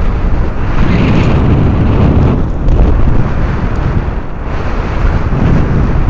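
Strong wind buffeting the microphone: a loud, low rushing noise that rises and falls with the gusts.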